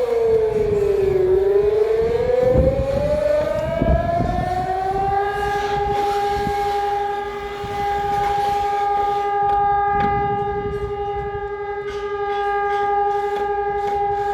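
Civil defense air raid siren sounding for the Wan An drill. Its pitch falls to a low point about a second in, rises again, and from about five seconds in holds a steady tone, with low rumbling noise beneath it.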